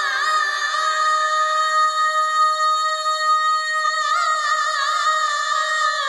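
Background score: a woman's wordless sung line, a long note held with vibrato, with a few ornamented turns about four seconds in before settling on a held note again.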